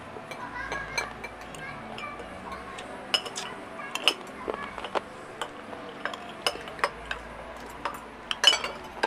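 Spoons and forks clinking against plates as people eat, in irregular light clinks with a burst of sharper clinks near the end. Faint voices in the background.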